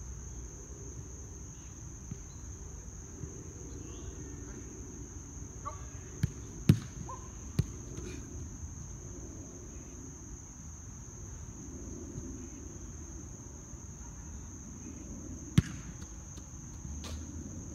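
Soccer ball being struck during goalkeeper training: a quick cluster of sharp thumps about six to eight seconds in, and another loud one near the end. A steady high drone of insects runs underneath.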